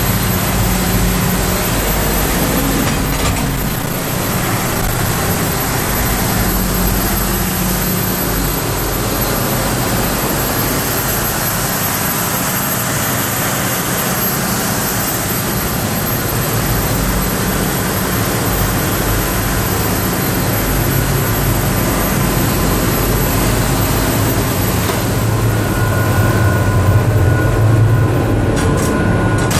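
Loud, steady din of a crew boat's marine diesel engines running under way, heard inside the steel engine room. A couple of steady higher tones join the din near the end.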